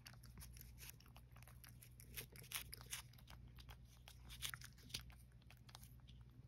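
Cat licking a lickable treat from a squeezed stick pouch: faint, irregular wet licking clicks, several a second, with a few louder smacks.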